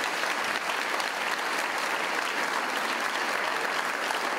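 Audience applauding: a steady clapping of many hands.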